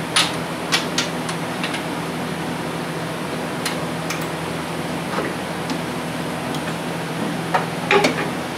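Scattered metal clicks and clinks of a socket and extension being fitted onto a spark plug, a few in the first two seconds and the loudest pair near the end, over a steady fan hum.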